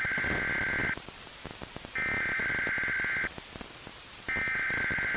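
Emergency alert SAME header on weather radio: three identical bursts of buzzy digital data tones, each a little over a second long with about a second between them. They mark the start of an encoded weather warning, here a high wind warning.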